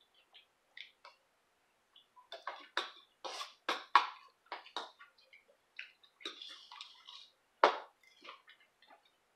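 A metal spoon clinking and scraping against a ceramic bowl as food is scooped up and eaten: a run of short clicks and scrapes, thickest in the middle, with one sharper knock near the end.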